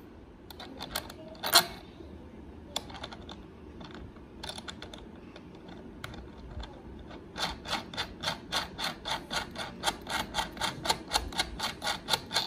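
Small metal clicks from a bolt and washer being fitted and turned into a wooden sofa frame. A few scattered clicks come first, then a steady run of quick ticks, about three a second, from a little past halfway.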